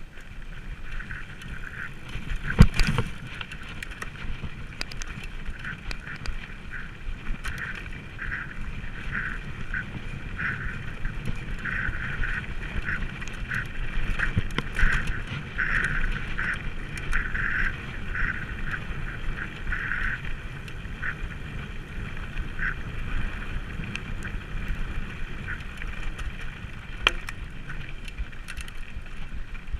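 Specialized FSR full-suspension mountain bike riding a forest trail: a steady rumble of wind and rolling noise, with a sharp knock about three seconds in and a smaller one near the end. A short higher-pitched note repeats irregularly through the first twenty seconds.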